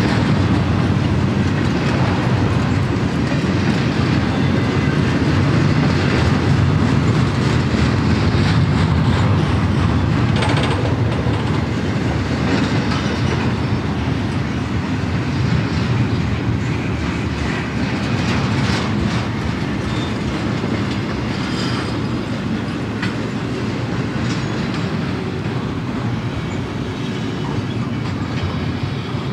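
Double-stack intermodal container train rolling past on well cars: a steady rumble of steel wheels on rail, with scattered clicks and clacks as the wheel trucks cross rail joints.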